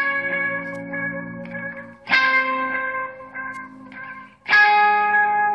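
LTD electric guitar played slowly: a chord is struck about every two and a half seconds and left to ring and fade, three times.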